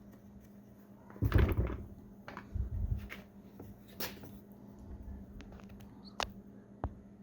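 Hands working at a car door's plastic power mirror wiring connector and trim: a rustling thump just over a second in, a softer bump, then a few sharp plastic clicks.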